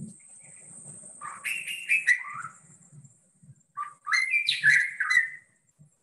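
White-rumped shama song played from a recording: two short phrases of rich, gliding whistled notes, the first about a second and a half in, the second about four seconds in.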